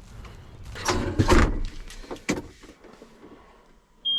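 Handling noises in a tractor cab: rustling and knocks about a second in, a sharp clunk a little after two seconds, then a short high electronic beep near the end, just before the engine is started.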